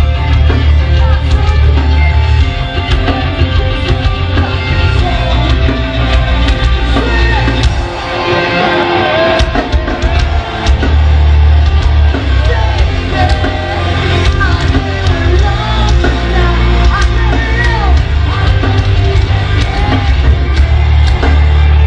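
A metalcore band playing live and loud, heard from within the crowd: distorted guitars, pounding drums and bass, with vocals. The heavy low end drops out for a few seconds near the middle, then the full band crashes back in.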